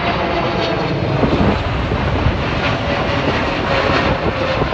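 Jet airliner passing low overhead on final approach: a loud steady engine roar with a whine that drops slightly in pitch as it goes by.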